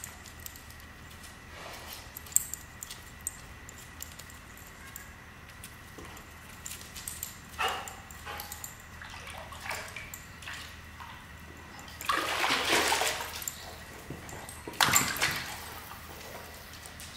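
Dog splashing at the water of a swimming pool: scattered small splashes, then a louder burst of splashing about twelve seconds in and another a few seconds later.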